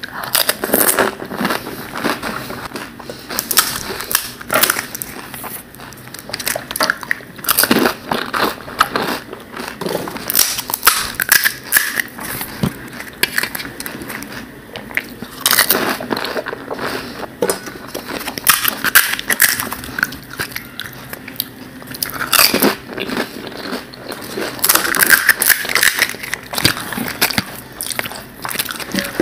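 Close-up eating sounds: crisp fuchka (panipuri) shells crunching and crackling as they are bitten and chewed, in a steady run of sharp crackles.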